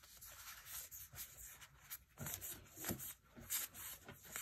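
Magic: The Gathering cards being flipped through by hand: faint, irregular soft slides and ticks of card stock as each card is moved across the stack.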